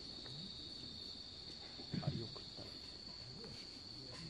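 Crickets trilling steadily on one unbroken high note, with low voices murmuring briefly about two seconds in and again near the end.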